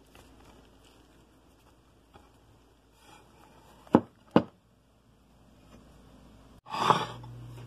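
Quiet food-prep handling sounds from rolled flatbread and a baking dish: two sharp knocks close together about four seconds in, then a brief louder rustle near the end.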